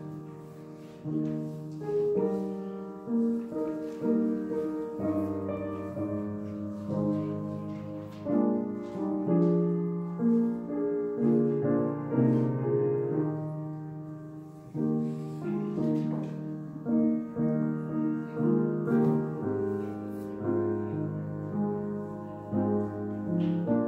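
Piano playing the postlude: a melody over chords, each note struck and left to ring.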